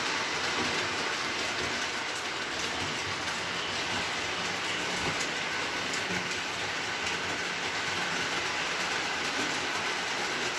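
O-scale model freight train, pulled by a Williams by Bachmann Burlington diesel, running at low power on three-rail track: a steady whir of motor and rolling wheels with light clicking from the rails.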